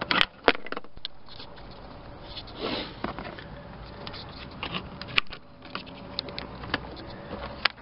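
Scattered clicks, taps and short scrapes of plastic and metal parts being handled as a plastic release lever is worked onto a minivan seat's metal folding mechanism, with a cluster of sharp clicks at the start and a longer rubbing scrape about three seconds in.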